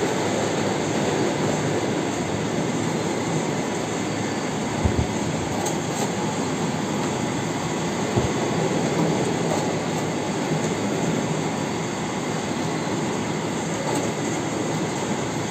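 Passion fruit top-cutting and pulp-separating machine running steadily, a continuous mechanical whir, with two brief thumps about five and eight seconds in.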